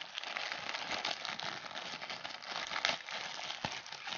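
Plastic courier mailer bag crinkling and rustling as hands pull and tear it open, with sharp crackles throughout.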